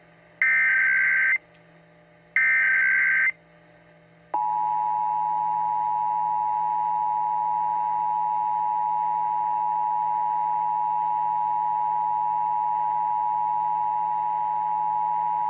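Emergency Alert System alert tones: the last two of three SAME header data bursts, each about a second long with a second's gap, then the two-tone EAS attention signal (853 and 960 Hz) coming on about four seconds in and holding steady.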